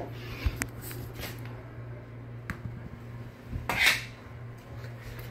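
Small racket clattering against a tennis ball and the tile floor as a toddler swings at it, one louder scraping clack a little over three and a half seconds in, with a few light taps before it.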